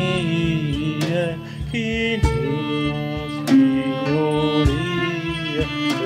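Live music from a violin and guitar with percussion: the violin plays a sliding melody over a steady low beat, with a sharp percussive strike about every second and a quarter.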